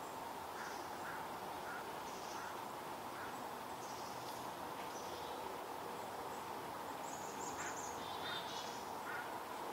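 Chickadee scolding near a perched barred owl: a scatter of short high calls, a high trill about seven seconds in and a harsh buzzy call right after, over a steady background hum.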